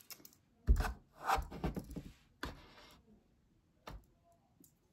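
Handling noises: a thump about a second in, then rubbing and scraping, then two sharp clicks, one near the middle and one near the end.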